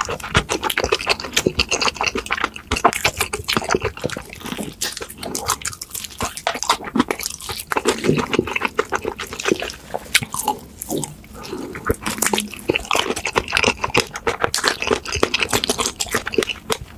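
Close-miked mouth sounds of eating: wet chewing and smacking, made of many quick irregular clicks and crackles.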